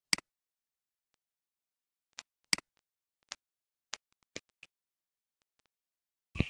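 Computer mouse clicking: about eight short, sharp single clicks at irregular intervals, with dead silence between them. The loudest come just after the start, about two and a half seconds in, and at the very end.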